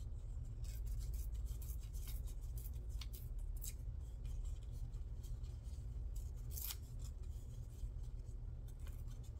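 Paper scraps being handled and cut: scattered crisp snips and rustles over a steady low hum.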